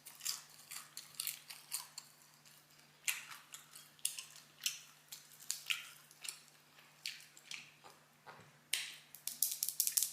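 Crispy fried chicken being chewed close to the microphone: rapid, irregular crunching crackles in runs with short pauses between them.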